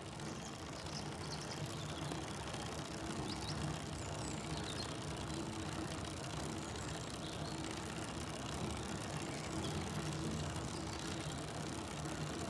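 A car driving at a steady speed, with a low engine hum under road and wind noise.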